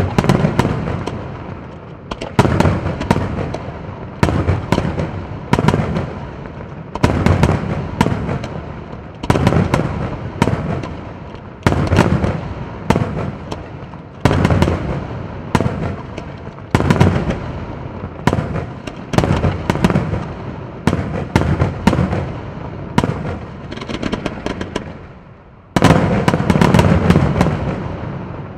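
Daytime fireworks display: aerial smoke shells bursting one after another, a sharp bang about every one to two seconds, each dying away before the next, with a louder bang near the end.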